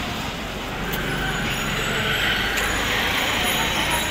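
Steady road traffic noise of a busy street, a continuous rumble of passing vehicles.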